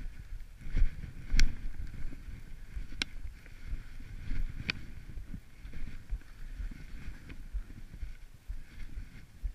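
Skis running through soft snow, heard through a camera worn by the skier: a rough low rumble throughout, with three sharp ticks at about one and a half, three and nearly five seconds.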